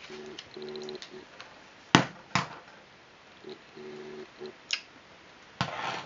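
Sharp clicks and handling noise as the plastic buckle connectors of a rope camera strap are fitted to a mirrorless camera's strap lugs. The two loudest clicks come about two seconds in, close together, and another follows near the end.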